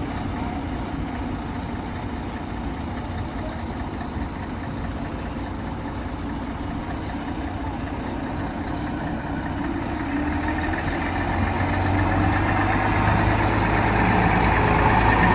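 Diesel engine of a UD Quester GWE 370 crane-carrier truck running steadily just after start-up, its deep rumble growing louder over the last few seconds.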